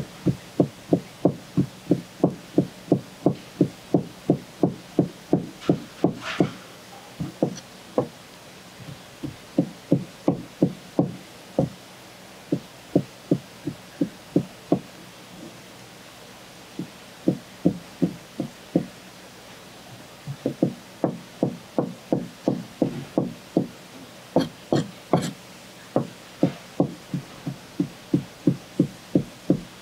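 Knife chopping on a cutting board in runs of about three knocks a second, broken by short pauses, with a couple of sharper clicks.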